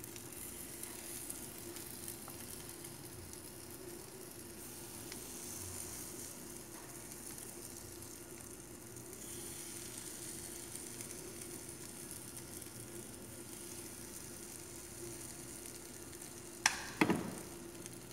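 Steady sizzling hiss of batter cooking in the cups of a hot electric cupcake maker, with a faint low hum underneath. Two sharp knocks near the end.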